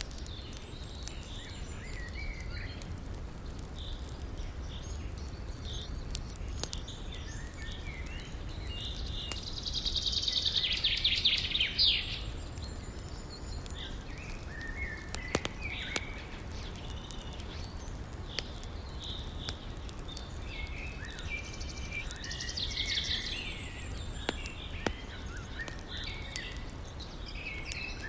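Songbirds singing in short phrases, with two louder rapid trills, one about a third of the way in and one near the end. Under them runs a steady low rumble, with scattered faint crackles from a campfire.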